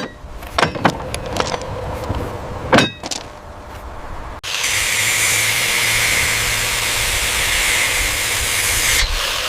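A few sharp metallic knocks from track-work tools, then about four and a half seconds in an abrupt switch to loud, steady, hissing machine noise that eases near the end.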